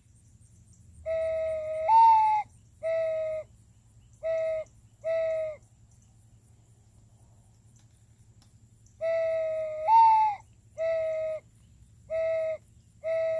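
A handmade solid-wood, whistle-based dove call blown to imitate a dove's coo, twice. Each time a low hooting note steps up to a louder, higher note, the double tone made by a finger on the small side port hole, and three shorter low notes follow.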